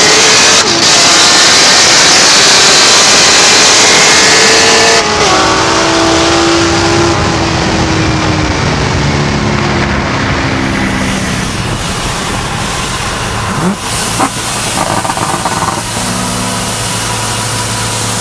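Corvette V8 engines at full throttle in a roll race. The pitch climbs through the gears, with upshifts about half a second and five seconds in. The engines then ease off and settle to a steadier, lower drone near the end.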